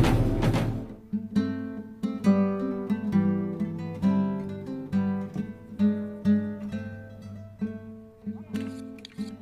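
Background music: an acoustic guitar playing picked notes, coming in about a second in as a loud intro sting cuts off.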